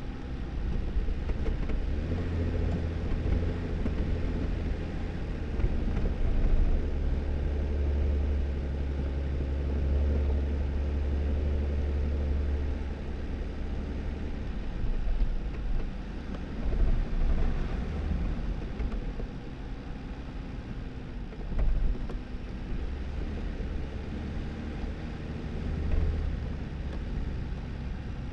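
2018 Jeep Wrangler driving along a snowy dirt road: a steady low engine hum under tyre and road noise, with a few louder jolts along the way. The engine note is fuller in the first half, eases off in the middle and picks up again near the end.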